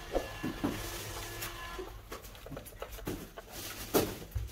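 A hand screwdriver clicking as it turns a screw into a plastic electric iron's housing, with light knocks of the iron being handled. A sharper knock about four seconds in comes as the iron is picked up and turned over.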